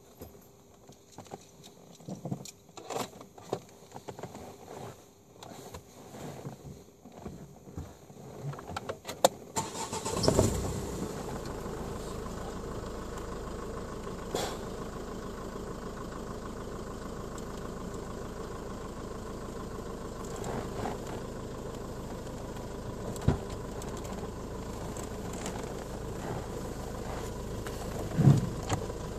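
Renault Mégane II engine started about ten seconds in, with a short loud burst as it fires, then idling steadily to the end. Before it starts there are scattered clicks and rustling of handling inside the car, and a few clicks and a thump come near the end.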